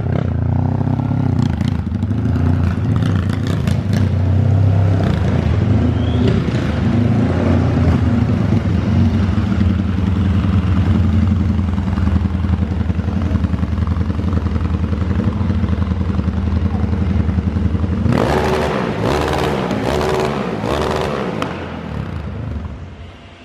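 Honda CG Today motorcycle's single-cylinder four-stroke engine running steadily, after its repair. About three-quarters of the way through it is revved in a few short bursts, then it cuts out near the end.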